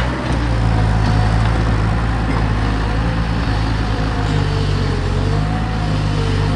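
Bobcat skid-steer loader's diesel engine running steadily under digging load, with a higher whine that wavers in pitch and sags about four to five seconds in.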